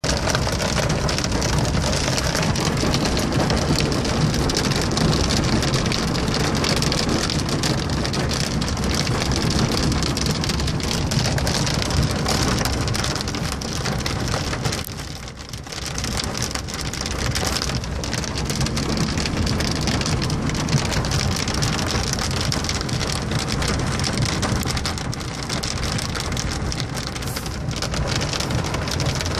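Heavy rain hitting a car's windshield and roof, heard from inside the cabin while driving on a wet road. It eases briefly about halfway through, then comes back as strong as before.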